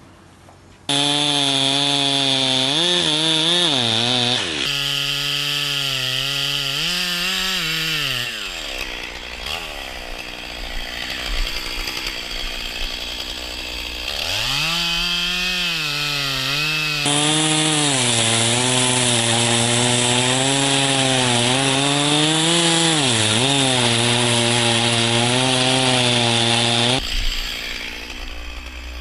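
Two-stroke chainsaw running at high revs while cutting into a large tree trunk, its engine pitch sagging again and again as the chain bogs in the cut and then picking back up. It is quiet for the first second, and the sound jumps abruptly several times where takes are joined.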